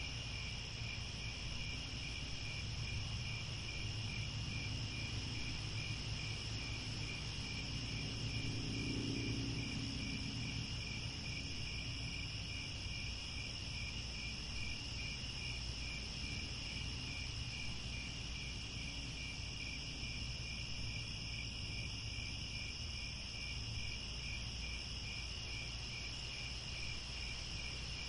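A chorus of crickets chirping steadily in an even, rhythmic pulse, over a low steady rumble that swells briefly about a third of the way in.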